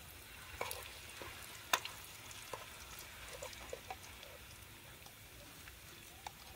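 Food frying in oil in a steel wok, a faint steady sizzle, with a metal spatula scraping and clinking against the pan; one sharper clink comes a little under two seconds in.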